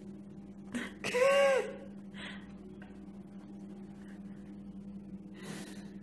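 A short high call about a second in, its pitch rising then falling, over a steady low hum, with a few soft rustles of jacket fabric.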